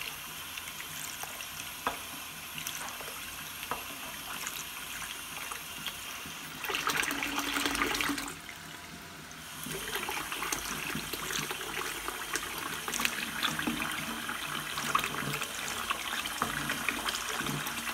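Cold water running from a kitchen tap into a pot of cooked chickpeas in a stainless-steel sink, splashing as the chickpeas are stirred to rub their skins loose. The water gets louder about seven seconds in, then drops away briefly before running steadily again.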